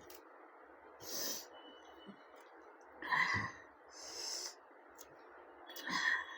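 A person eating close to the microphone: short mouth sounds of chewing and a few breaths between mouthfuls, every second or so.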